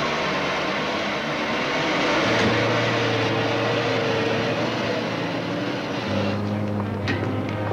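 Train running with a loud, steady rushing noise and a few held tones, which falls away about six seconds in as music comes in.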